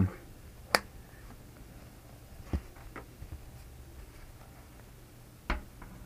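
Sharp clicks and taps of a PC case side panel and its mesh filter being handled and taken off: a loud click just under a second in, two softer taps in the middle, and another sharp click near the end.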